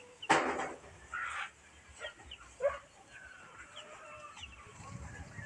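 Domestic chickens clucking and calling, with a loud brief noise about a third of a second in.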